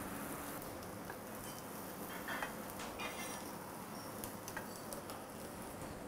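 Light ticks and taps of a chef's knife on a wooden chopping board as morels are cut, with a short run of quick clicks about three seconds in, over a faint steady hiss.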